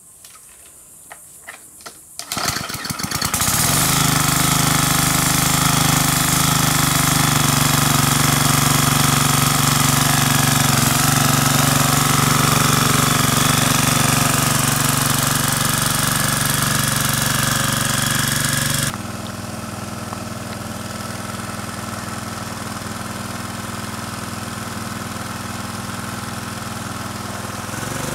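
Small petrol engine of a Rotakt walk-behind sickle-bar mower being started: a few clicks, then it catches about two seconds in and runs loudly and steadily. Past the middle it drops to a quieter, steady running as the mower cuts grass further off.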